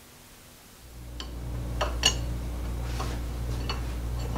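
A few light metallic clicks and taps as a milling machine's table leadscrew and handwheel are handled, over a steady low hum that comes in about a second in.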